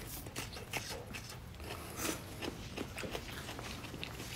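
Eating noises: irregular small clicks and chewing, with no steady tone.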